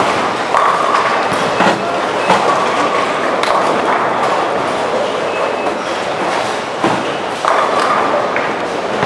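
Bowling alley din: a steady rumble of balls rolling down the lanes, broken by several sharp crashes and knocks of balls striking pins.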